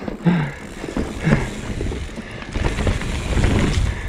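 Mountain bike descending a rough forest trail: tyres running over dirt and roots with the bike rattling, plus wind rumble on the microphone that grows louder in the second half as speed picks up.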